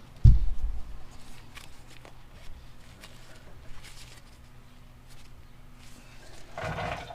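Handling noise from fitting a plastic zip tie around a tie rod boot: a low thump just after the start, then scattered light clicks over a faint steady hum, and a short rasp near the end.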